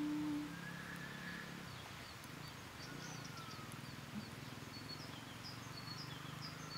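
Wild birds chirping faintly, short high chirps repeating about twice a second in the second half, with a couple of longer gliding whistles. A steady hum-like tone ends about half a second in, and a faint low drone runs underneath.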